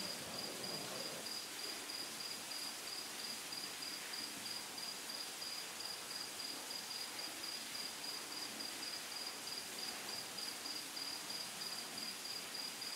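Crickets chirping: a steady run of evenly repeated high-pitched pulses over a faint outdoor hiss.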